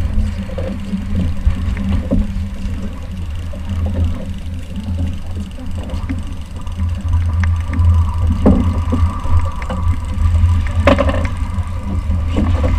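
Outboard motor running steadily at trolling speed, with wind rumbling on the microphone and a few short knocks in the second half.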